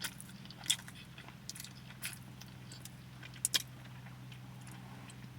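Someone chewing a baked grinder sandwich close to the microphone, with a few short, sharp crunches and mouth clicks over a steady low hum.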